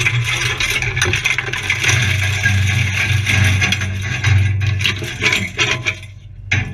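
Off-road 4x4 driving along a rough, rutted gravel track: a steady engine drone under constant rattling and scraping of the vehicle over the stones. The engine note drops away briefly near the end, then picks up again.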